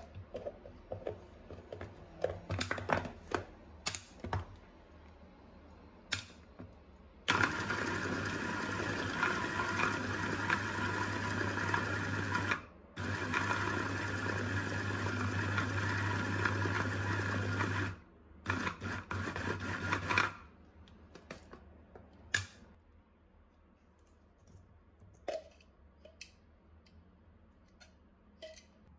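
Bosch Sportline 750 W hand blender's motor running steadily on its chopper attachment, chopping prunes: about five seconds, a brief stop, about five seconds more, then a few short pulses. Before it, clicks and knocks as the motor unit is fitted onto the chopper lid; after it, light taps and scraping as the chopped prunes are emptied out.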